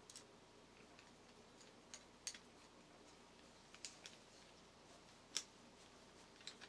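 Faint, scattered clicks and taps from a small screwdriver and 3D-printed plastic parts being handled while a screw is driven, about six in all, the loudest about five and a half seconds in.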